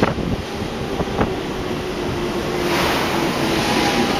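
JR Central electric train moving along a station platform: a steady rush of wheel and running noise with a faint motor hum, a couple of light clicks, and a brighter hiss coming in about three seconds in.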